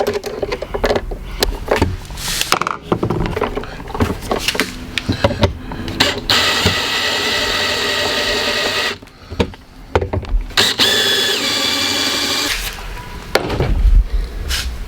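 Power drill driving screws to mount electrical outlets into their boxes: two runs of a few seconds each with a steady whine, the second dropping slightly in pitch near its end. Clicks and knocks of handling come before the first run and low thumps after the second.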